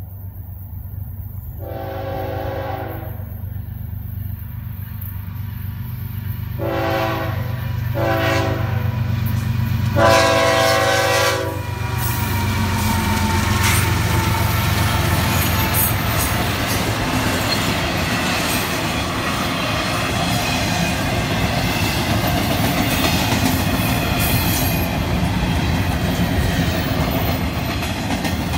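Florida East Coast Railway GE ES44C4 diesel locomotives sounding their air horn for a grade crossing: four blasts, a long one, two short ones, then a longer final one, over a diesel drone that grows louder. The locomotives then pass, followed by a long train of double-stack intermodal well cars rolling by with steady wheel and rail noise.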